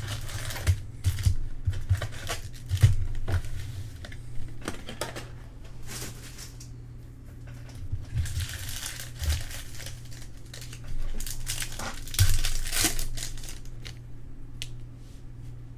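Trading card pack wrappers crinkling and tearing open, with scattered sharp clicks and rustles from handling the packs and cards.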